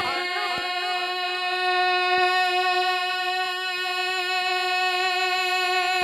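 Male naat reciter holding one long sung note into a microphone through a sound system, steady in pitch and unbroken.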